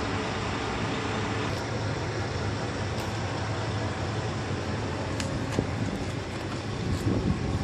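Semi truck idling: a steady low engine hum under an even hiss, with a few sharp ticks scattered through.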